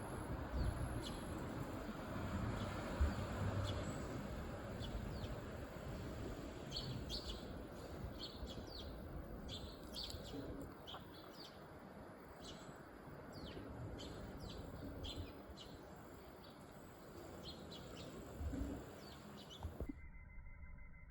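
A bird giving many short, high chirps in irregular runs over steady low outdoor noise. The sound cuts off about a second before the end.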